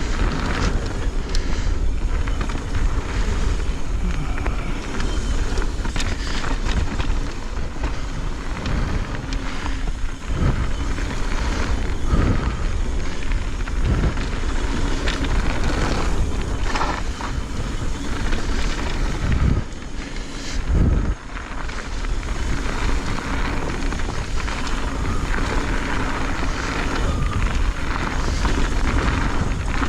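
Wind rushing over the helmet- or bike-mounted action camera's microphone and mountain-bike tyres rolling on dirt trail, with scattered knocks and rattles from the Pivot Firebird full-suspension bike over bumps.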